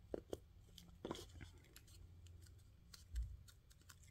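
Faint paper handling: a few small clicks and rustles as glued paper and card pieces are pressed and fitted together, with a soft low thump about three seconds in.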